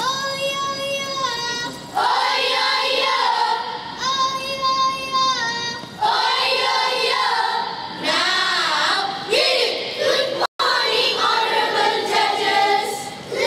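A children's choral-speaking group voicing in unison: a held sung note about a second and a half long, then rhythmic group chanting, with the same pattern coming round again. The sound drops out for an instant about ten and a half seconds in.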